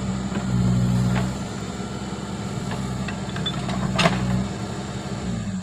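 Case backhoe loader's diesel engine running steadily as it works, pulling harder for about a second near the start, with a single sharp knock about four seconds in.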